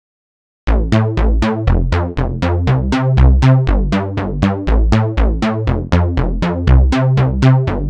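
Electronic background music with a drum-machine beat and quick synth notes, about four a second, over a heavy bass. It starts abruptly after a brief silence at the very beginning.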